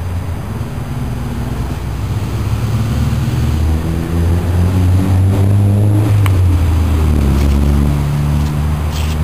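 Car engine running, growing louder and climbing a little in pitch over a few seconds, then easing back down about six seconds in.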